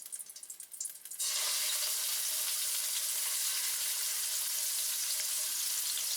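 Diced chicken going into hot oil and sizzling steadily; the sizzle starts suddenly about a second in, after a few faint clicks.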